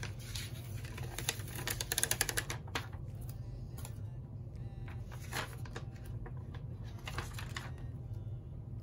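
Paper sticker sheets being handled and laid down on a binder: crisp rustles and quick clicking taps, densest about two seconds in, with a few single taps later, over a steady low hum.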